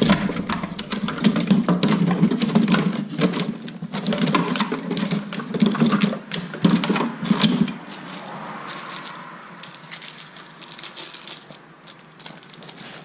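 Rapid, irregular clicking and rattling of small hard objects, which dies down about eight seconds in to a faint rustle.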